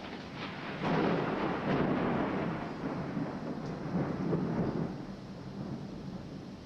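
Thunder rolling: a rumble that swells about a second in, stays loud for several seconds, then fades.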